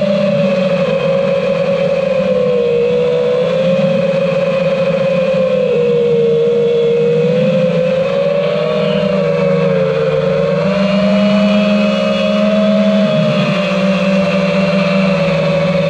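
Five-inch FPV quadcopter's brushless motors and propellers whining steadily, the pitch wavering gently up and down as the throttle changes in cruising flight.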